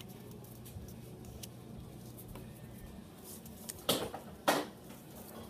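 Paper being folded by hand: faint rustling, then two short, sharp scrapes of fingers creasing the fold, about four seconds in and half a second later. A faint steady low hum underneath.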